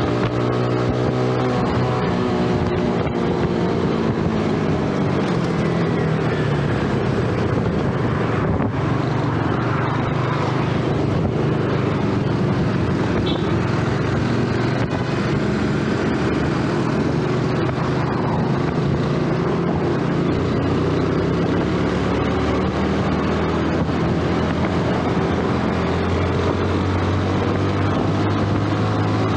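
Yamaha 2012 underbone motorcycle's small single-cylinder engine running under way, its pitch rising and falling with the throttle, over steady road noise.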